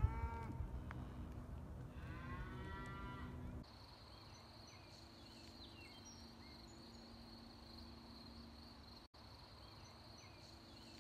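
Cattle mooing: two high, bending calls, one at the start and one about two seconds in. The calls stop abruptly, leaving a faint steady high insect buzz with a few scattered bird chirps.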